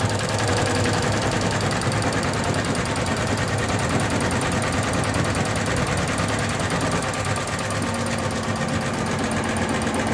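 Osaka multi-head computerized embroidery machine stitching: a loud, steady, rapid mechanical clatter of the needle heads.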